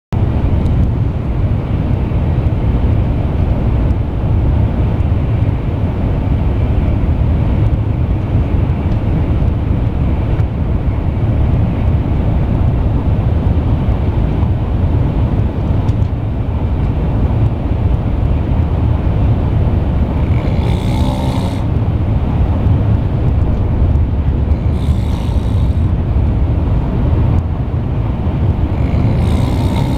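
A man snoring, with three loud snores about four to five seconds apart in the last third, over a loud steady low rumble.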